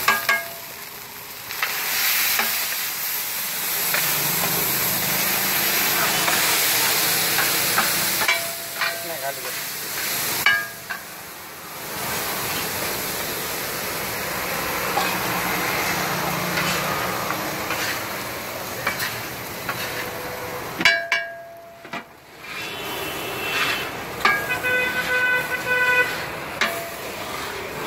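Egg mixture sizzling on a large flat griddle while a metal spatula scrapes and chops across it, with sharp clacks of metal on metal every so often. Near the end a steady pitched tone with several overtones sounds for a few seconds.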